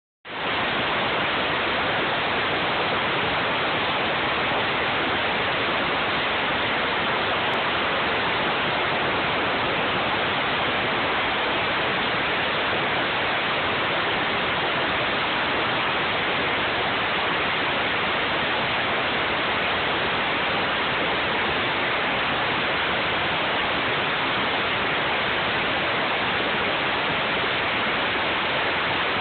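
Bridge CNC mill cutting a metal die block with a milling cutter: a steady, even rushing noise that does not change.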